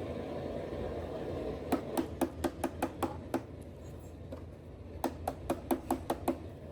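Two quick runs of sharp taps or knocks, about five a second, over a steady low rumble.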